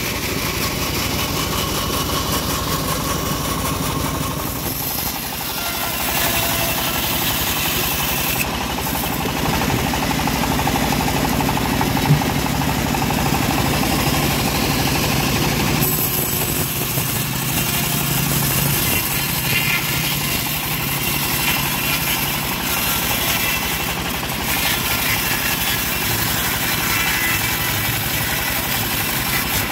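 Homemade engine-driven bandsaw mill running steadily as its band blade rips lengthwise through an acacia log.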